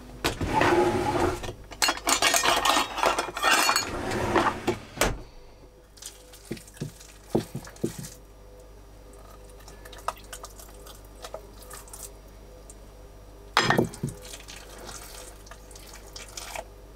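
Kitchen dishwork at a counter: a few seconds of running water and clattering dishes, then scattered light clinks and a short clatter about two-thirds of the way through.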